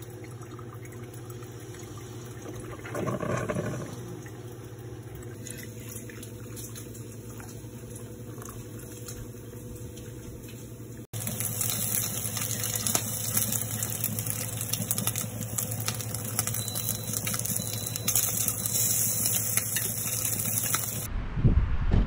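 Mr. Coffee drip coffee maker brewing, a steady hum with a louder gurgle about three seconds in. Then bacon sizzling in a frying pan, a steady hiss with small crackles. Near the end a pickup truck's engine rumbles, the loudest sound.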